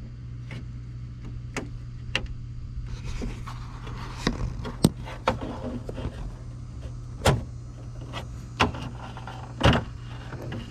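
Screwdriver prying at the clipped-on plastic dash trim of a 2001 Jeep TJ: scattered sharp clicks and knocks of tool on plastic, with a few louder snaps about five, seven and nine and a half seconds in, over a steady low hum.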